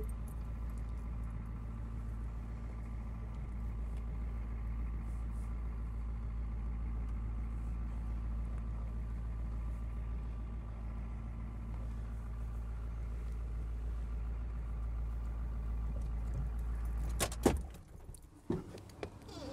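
Ford F-350 dually pickup engine running steadily, then switched off about seventeen seconds in. A few sharp clicks and knocks follow as it stops.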